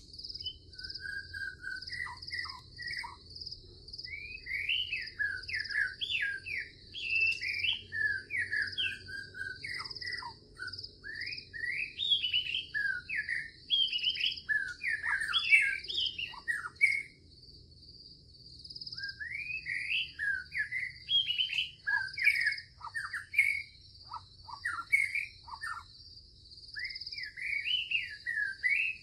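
Songbird singing phrases of quick, sliding whistled notes over a steady, high, pulsing insect trill. The song pauses for a couple of seconds a little past the middle, then resumes.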